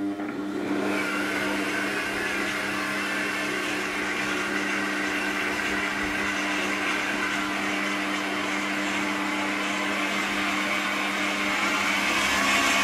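Kenwood kMix stand mixer's motor starting up and running steadily, its creaming beater mixing eggs, flour and baking powder into creamed butter and sugar for a cake batter. It grows louder near the end as the speed dial is turned.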